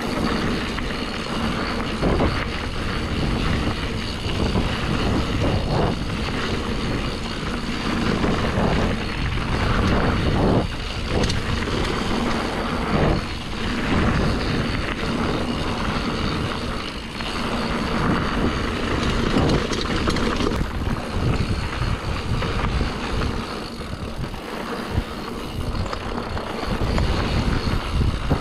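Wind rushing over the microphone as a mountain bike descends fast on a dirt trail, with tyre noise and the bike rattling and knocking over frequent bumps.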